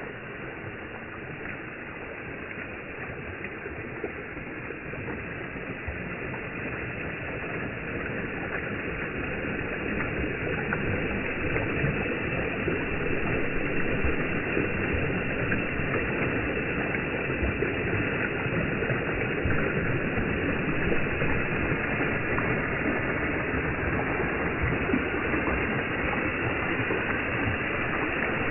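Water falling over a backyard pond waterfall into the pond: a steady rushing splash that grows louder over the first ten seconds or so, then holds level.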